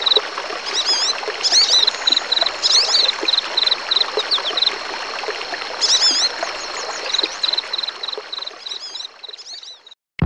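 Nature ambience of running water with birds singing: wavy high chirps and a quickly repeated high note over a steady watery rush, fading out near the end.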